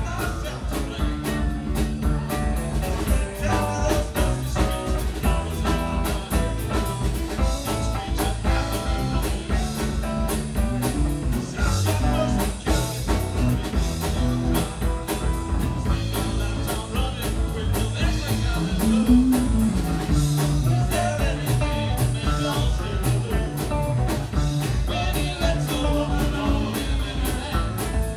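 Live rock band playing with electric guitars, bass, a drum kit and keyboard, in a continuous groove.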